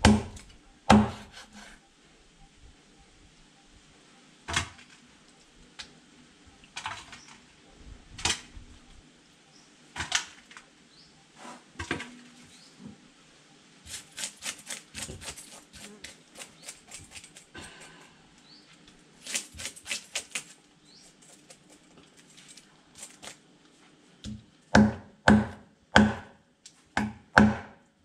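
Large kitchen knife striking a wooden chopping block while cutting up a tilapia: scattered single knocks, quick runs of light taps around the middle, and a string of heavier chops with a dull thud near the end.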